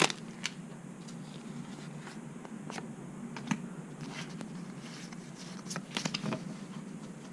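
Faint, scattered soft flicks and scrapes of Pokémon trading cards being handled and slid apart, over a low steady hum.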